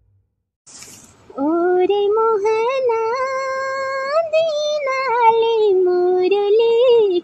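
A woman singing the opening of a Kumaoni folk song unaccompanied: long held notes that slide and turn between pitches, with no instruments heard. A short hiss comes just before the voice enters, about a second in.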